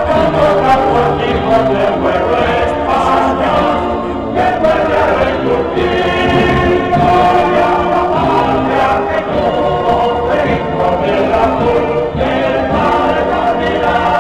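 Choir of many voices singing, with held notes that change about every second, loud and continuous.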